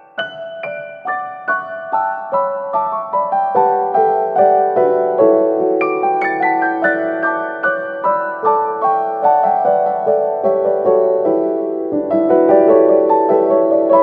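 Background piano music: a flowing run of quick notes over sustained chords, growing fuller near the end.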